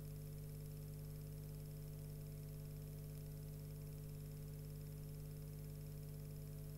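Steady low electrical hum with a faint hiss and nothing else: the noise floor of a soundtrack that carries no recorded sound.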